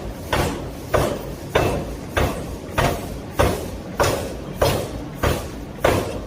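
Hammer blows on hot steel during heavy forging, struck at an even pace of a little under two a second, about ten in all. Each blow is a sharp strike followed by a short fading ring.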